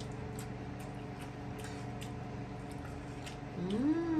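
A few faint clicks of cutlery and dishes over a steady background hum, then a drawn-out voice that rises and falls near the end.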